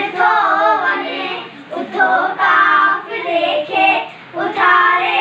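Children singing a song together without instruments, in phrases broken by short pauses.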